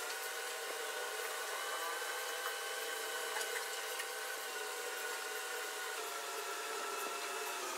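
Steady hum and hiss of a small electric motor, with a thin whine that steps slightly up or down in pitch a few times, and a few faint clicks.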